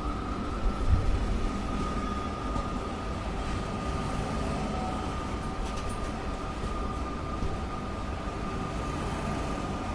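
Train running steadily: a low rumble with a constant high whine over it, and a couple of low thumps about a second in.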